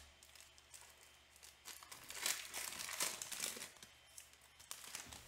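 Wrappers of Panini Illusions football card packs crinkling and tearing as the packs are opened by hand. The rustles come in an irregular string and are busiest in the middle.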